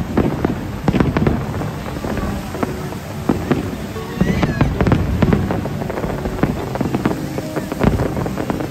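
Fireworks going off: a rapid, irregular run of bangs and crackles, several a second.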